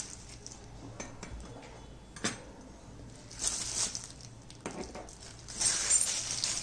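A clear plastic bag rustling in short bursts as small brass miniature pieces are pulled out and set down, with a sharp tap of brass on the tabletop a little over two seconds in.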